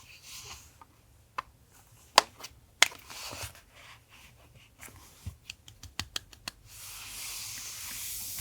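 Journaling and collage materials being handled on a desk: scattered sharp clicks and taps, then a quick run of about eight clicks, ending in a steady hiss like paper being rubbed or slid.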